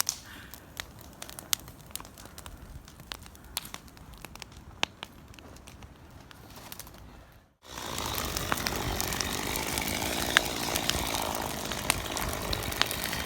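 Brush pile fire burning, with scattered crackles and snaps of burning spruce. After an abrupt cut about halfway through, it becomes a louder steady rush of flames with frequent pops.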